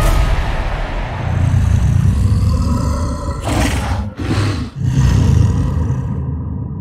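Kong's roar, the deep roar of a giant ape as a film sound effect, opening with a hit. It rumbles and swells, turns harsher about halfway through with two brief breaks, then fades away.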